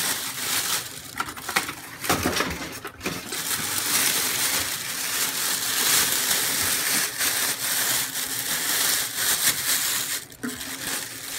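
Rustling and crinkling of packaging as a new slow cooker is unpacked and handled, with a few sharp knocks about one to three seconds in.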